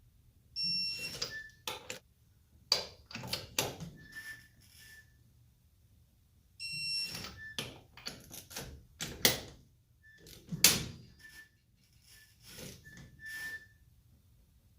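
Torque wrench and socket tightening wheel lug nuts: ratcheting strokes and sharp metallic clicks in two runs, with a short pause between them.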